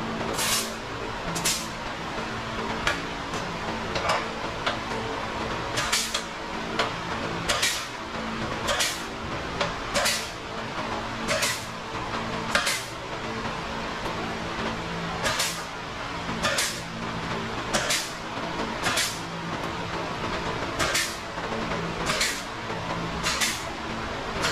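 Short, repeated hisses of compressed air from a handheld air tool on a shop air hose, each blast about a third of a second long, triggered every second or two.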